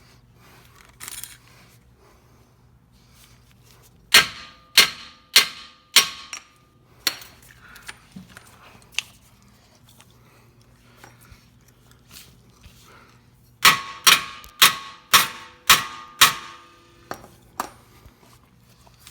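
A hammer strikes metal on the stuck lower control arm (wishbone) joint of a BMW X5 to knock it loose. The blows ring and come in two quick runs of five or six, with a few single strikes between them.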